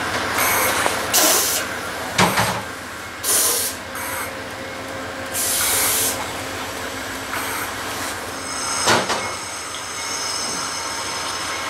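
Amtrak passenger cars rolling past on snowy track: a steady run of wheels on rail with short bursts of hiss, a sharp knock about two seconds in and another near nine seconds, and a faint high ringing near the end.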